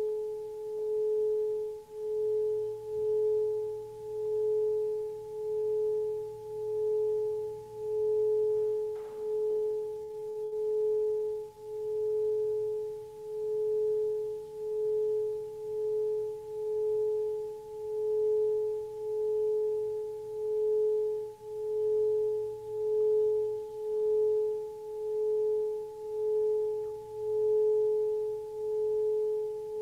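Metal singing bowl sung by circling a wooden stick round its rim: one steady ringing tone with a fainter higher overtone, swelling and fading about once a second.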